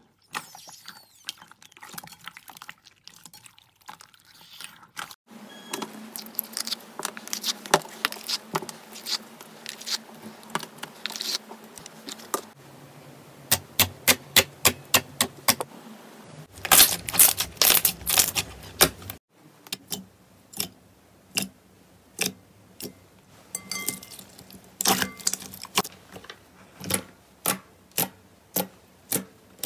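Hands squishing and poking glossy slime, making sticky wet clicks and pops. Near the end a run of even pops comes about two a second as fingers press into the slime and pull out.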